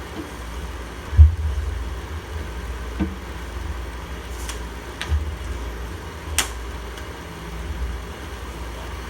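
Handling noise from plastic Beyblade parts: a handful of knocks and sharp clicks, the loudest a low thump about a second in, over a steady low rumble.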